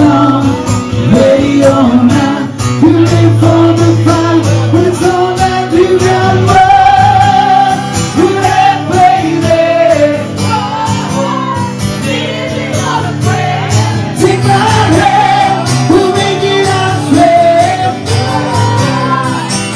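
Live acoustic music: two male voices singing together through microphones over a strummed acoustic guitar.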